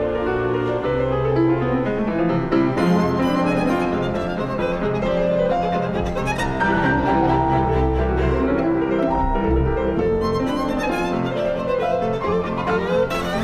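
Instrumental classical music: bowed strings playing held, changing melody lines over piano.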